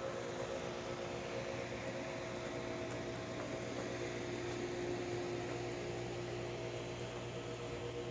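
A steady hum made of a few constant tones over an even hiss, unchanging throughout, like a running machine or motor.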